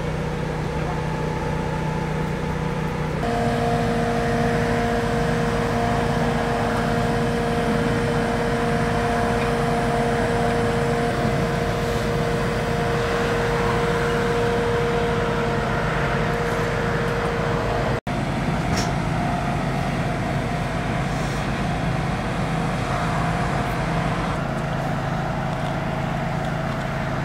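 Fire brigade aerial platform truck's engine running steadily: a constant drone with a few steady tones in it. The drone shifts slightly at cuts about three seconds in and about eighteen seconds in.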